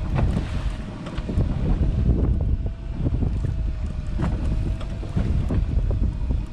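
Wind buffeting the microphone on a boat in a choppy sea, with splashes and knocks of water against the hull. Under it runs a thin, steady whine from the electric deep-drop reel winding the line up from the bottom.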